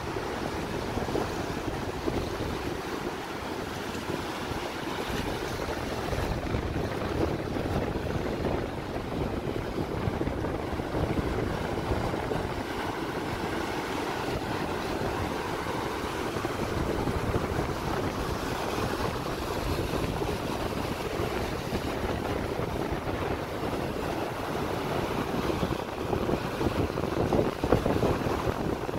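Surf breaking and washing up the beach, with wind noise on the microphone. A wave washes in a little louder near the end.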